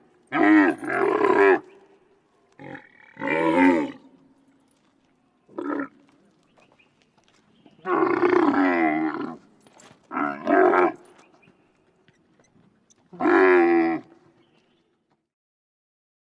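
A camel calling: a series of about seven drawn-out calls, each under two seconds, wavering in pitch.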